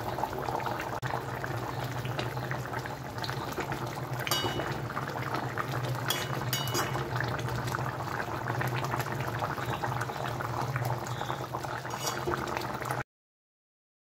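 Thin fish curry with potatoes boiling hard in an open pan on high flame: a steady bubbling with a low hum underneath. A few light clicks of the metal spatula against the pan come a third and halfway through, and the sound cuts off suddenly near the end.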